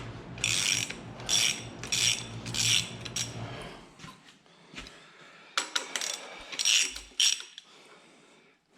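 Socket ratchet wrench clicking in short strokes as a bolt is run in: about five quick strokes, a pause, then a few more about two seconds later.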